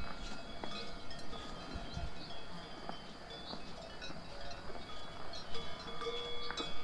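Cowbells of grazing cattle clanking irregularly, several bells at different pitches ringing over one another.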